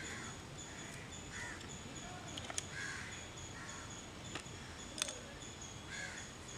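Crows cawing repeatedly, short calls spread through, with a few sharp clicks about two and a half and five seconds in.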